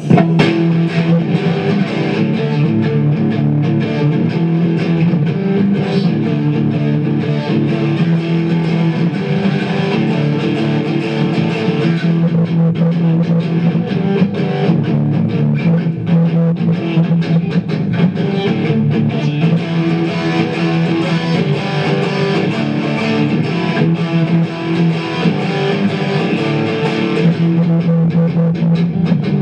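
Electric guitar played loud through an amplifier: a rock-and-roll riff of rhythmic strummed chords over a repeating bass-note pattern. The sound is clipped and distorted by the camera's overloaded microphone.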